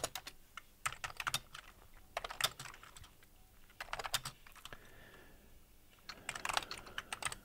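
Typing on a computer keyboard: four short bursts of keystrokes with pauses in between.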